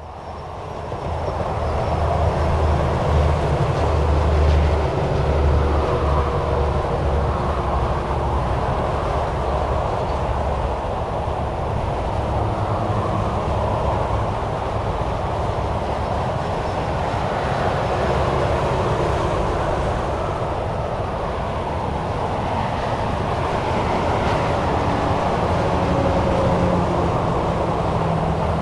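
Steady highway traffic of cars and semi-trucks, a continuous wash of tyre and engine noise with a deep rumble in the first few seconds. It fades in over the first couple of seconds.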